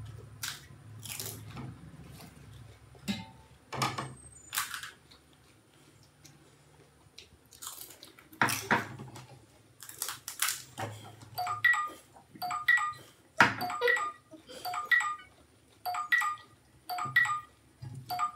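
Crisp golgappa (pani puri) shells crunching as they are bitten and chewed. About two-thirds of the way in, a phone timer alarm starts beeping about once a second, signalling that the challenge time is up.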